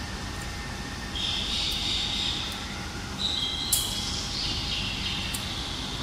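African grey parrot calling: a raspy, hissing call starting about a second in, a couple of short steady whistles around the middle with a sharp click, then another raspy call.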